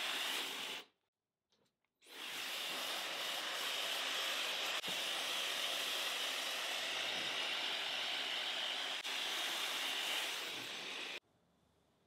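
Muttus M12X high-speed hair dryer blowing, a steady hiss of air. It cuts out for about a second near the start, runs again, then stops abruptly near the end.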